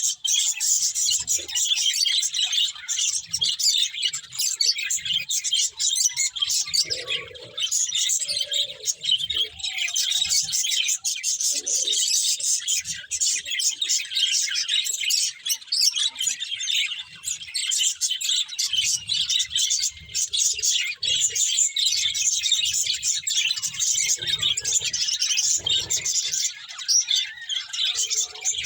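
Several budgerigars chirping and chattering continuously, a dense stream of quick high twittering calls.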